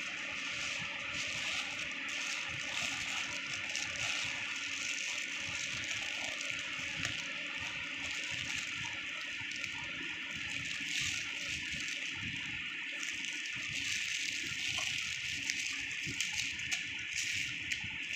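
Plastic carrier bag and aluminium foil crinkling and rustling as they are handled and unwrapped, with sharper crackles near the end, over a steady background hiss.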